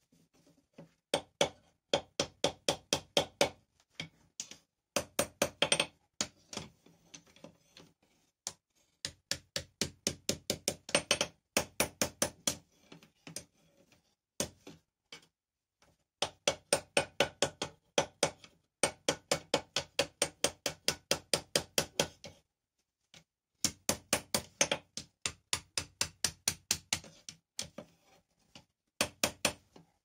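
Hand hammer striking red-hot steel on an anvil horn, forging a bar into a ring: quick runs of blows, about five a second, with a metallic ring after each, broken by short pauses to reposition the work.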